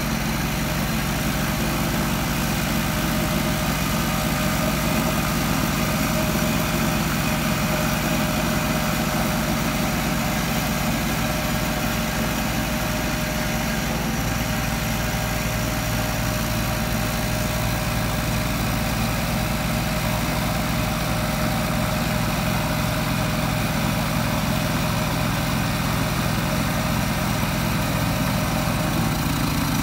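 Mikasa MRH-502SS super-silent walk-behind vibration roller running steadily as it is driven over gravel, a small engine with a low, even hum whose low note shifts slightly about halfway through.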